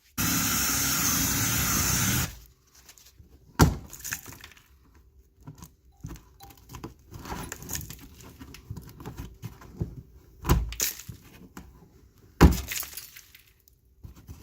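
Power drill drilling out a rivet for about two seconds, a loud steady whir that stops suddenly. It is followed by a few separate sharp knocks and clicks.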